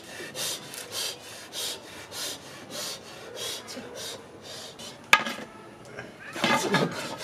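Rhythmic rasping strokes, about two to three a second, like rubbing or filing, stopping about four and a half seconds in. A sharp click follows about five seconds in, then a brief voice near the end.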